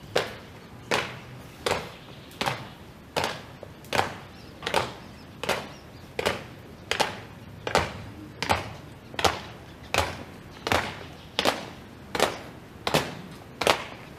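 Shoes of three marchers stamping in unison on concrete, a steady ceremonial march step with one sharp stamp roughly every three-quarters of a second.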